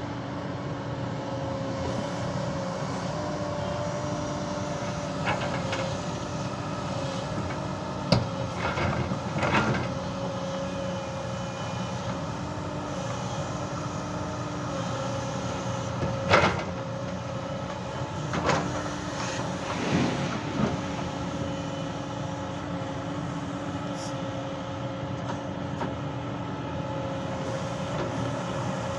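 Hyundai hydraulic excavator's diesel engine running steadily, its tone shifting up and down as the hydraulics work the arm and bucket. A few loud clattering knocks stand out, with the loudest about 16 seconds in, as loads of soil and stones drop into the tipper's steel body.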